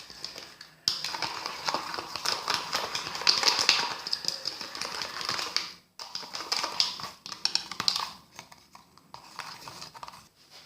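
A spoon stirring a thick, sticky homemade slime mixture in a bowl, making a rapid run of small clicks and taps against the bowl. It pauses briefly about six seconds in and grows sparser near the end.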